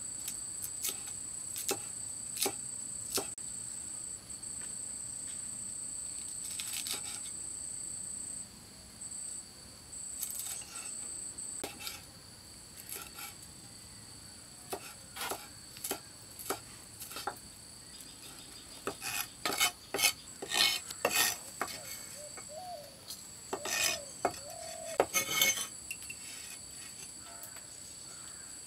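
Cleaver blade chopping chillies on a wooden log chopping block: scattered sharp knocks at first, then quicker, louder runs of chops in the second half. Insects keep up a steady high-pitched drone behind them.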